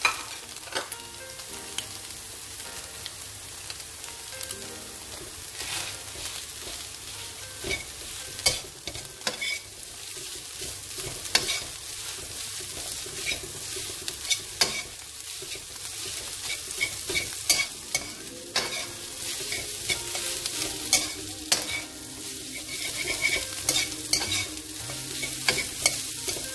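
Fried rice with egg and carrot sizzling in an oiled wok while a metal spatula stirs and tosses it: a steady sizzle broken by many irregular clicks and scrapes of the spatula against the wok.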